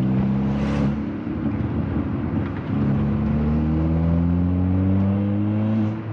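Mk6 Ford Fiesta's 1.6 Zetec engine accelerating through a new Hornet cat-back race exhaust, heard from inside the car with a low tone. The pitch climbs, drops and eases about a second in at a gear change, climbs again from near three seconds, and drops once more near the end. The exhaust is still blowing a little at its clamped joints when revved.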